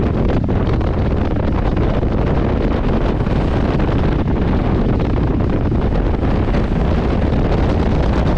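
Steady wind rushing over the microphone of a camera riding on a moving motorcycle, with the bike running underneath at an even speed.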